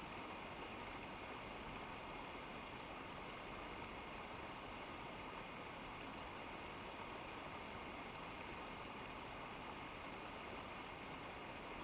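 Steady rushing of a mountain river, an even noise with no breaks or changes.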